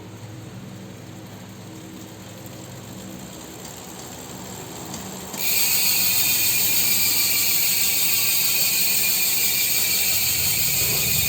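Shimano MT401 Micro Spline rear hub freewheeling: the freehub pawls click in a fast, even buzz that starts suddenly about halfway through and then holds steady. Before it there is only a faint low hum.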